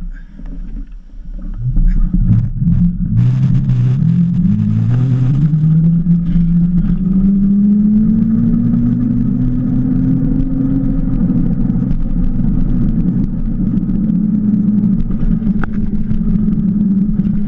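Cromotor electric hub motor of a Qulbix Raptor e-motorbike whining as the bike pulls away. The whine climbs in pitch for several seconds as it gathers speed, then holds steady while cruising, over a low rumble.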